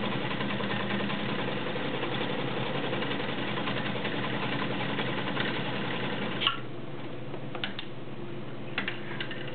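Vintage all-steel Kenmore Model 84 sewing machine running steadily while stitching a cam-driven decorative ball stitch, then stopping with a click about six and a half seconds in. A few short light clicks follow near the end.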